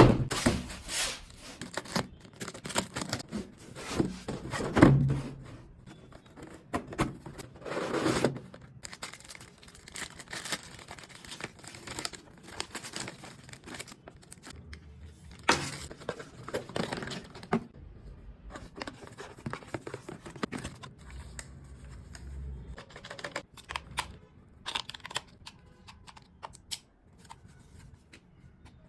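Toy packaging being torn open and crinkled by hand during an unboxing, with irregular rustles, rips and sharp clicks and knocks of handling.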